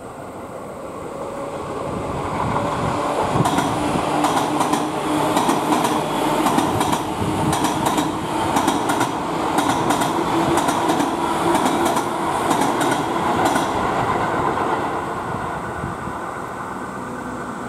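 An electric train passing close by, its wheels clattering over rail joints in a run of sharp clicks. The sound builds over the first few seconds and fades slowly near the end.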